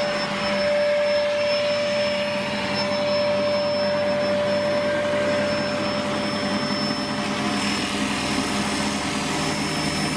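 Wood lathe running steadily with a constant whine, and the rushing hiss of sandpaper held against the spinning ash bowl.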